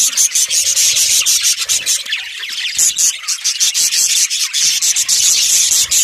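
A flock of budgerigars chattering together: a dense, continuous high-pitched twittering made of many quick chirps, easing off briefly about two seconds in.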